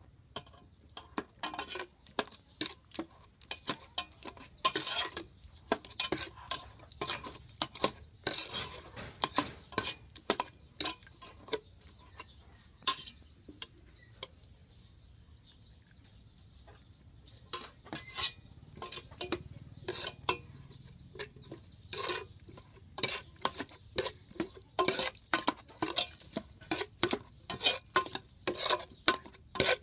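Kitchen utensils clinking and knocking against bowls and pots in irregular taps, with a quieter pause about halfway through.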